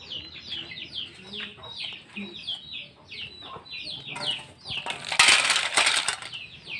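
Boiled snails and their cooking water poured from a pot into a perforated aluminium colander: a short splash and rattle of shells on metal about four seconds in, then a louder rush of draining water about five seconds in lasting just over a second. Rapid high cheeping of chicks throughout.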